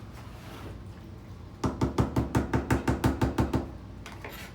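A utensil knocked rapidly against cookware to shake off clinging food: about a dozen quick, ringing knocks over two seconds, starting about a second and a half in.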